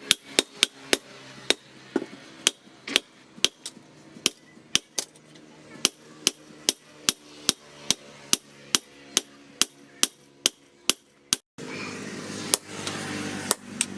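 Hammer blows ringing on steel at the anvil, forging the bearing's steel: a steady run of sharp strikes, about two to three a second. About eleven seconds in the blows stop briefly, then go on over more background noise.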